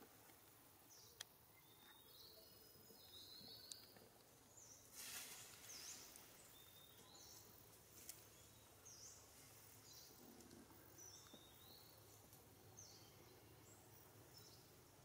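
Faint outdoor ambience: short high chirps repeating about once a second, with a brief rustling noise about five seconds in and a few faint clicks.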